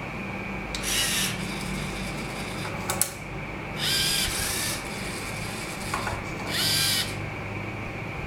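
Small robot arm electric motors whirring through their gears in three short bursts as the arm moves and grips. There are a couple of sharp clicks between the bursts.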